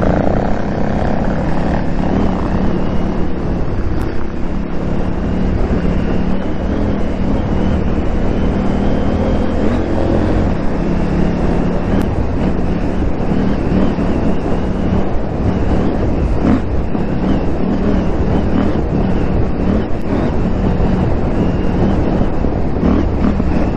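KTM 890 Adventure R's parallel-twin engine running under way off-road at a fairly steady pitch, with rushing noise over it.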